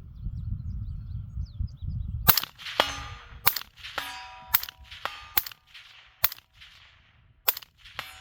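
Suppressed shots from a 5.56 AR-15 carbine with an 11.5-inch barrel and a CAT WB 718 Inconel suppressor, firing PMC X-Tac 77-grain rounds, starting a couple of seconds in and coming roughly a second apart. Sharp ringing metallic clangs fall between the shots, about half a second after several of them.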